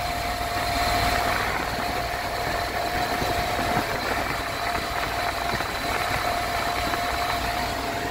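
Van engine idling steadily, its newly replaced serpentine belt turning the pulleys quietly with no squeaking.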